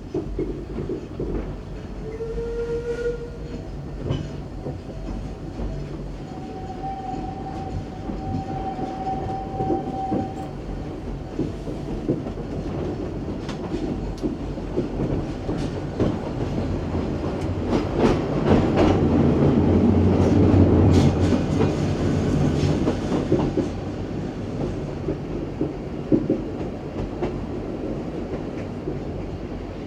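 Isle of Man Steam Railway train running along the track, wheels clacking over the rail joints with a steady rumble. A few brief pitched tones sound in the first ten seconds, and the running grows louder for a few seconds in the middle before easing back.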